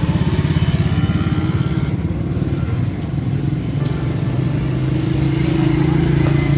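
A small engine running steadily close by, with a rapid pulsing beat for about the first two seconds and a smoother, steady hum after that.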